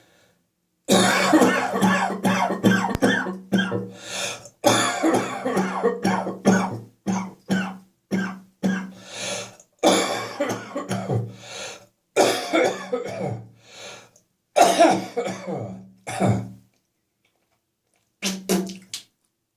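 A person's hard, repeated coughing and throat clearing in a long fit of separate bursts, some of them voiced, then a pause and one more short cough near the end. The uploader puts the fit down to coming from cold outside air into a warm house.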